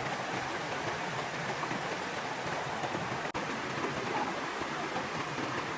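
Steady rush of water, an even hiss with no distinct drops or splashes.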